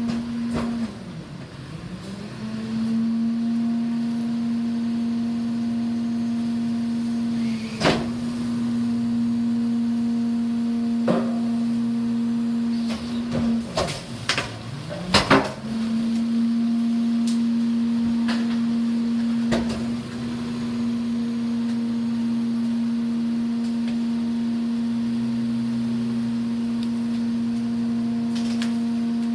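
Rear-loader garbage truck's engine and hydraulic packer running with a steady high hum that sags in pitch and recovers twice, about a second in and again halfway through, as the packer blade loads up on the brush. Sharp cracks and snaps of tree branches being crushed come through at intervals, thickest around the middle.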